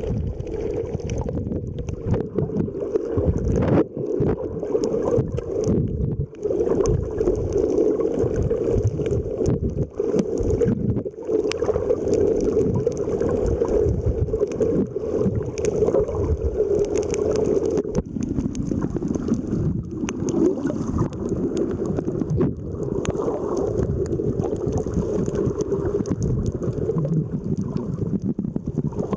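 Underwater sound picked up by a submerged camera: a steady, muffled rush of water with a fine crackle, dipping briefly now and then.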